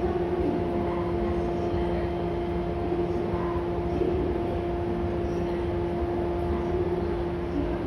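Steady electrical hum at a constant pitch over a low rumble, with no sudden events.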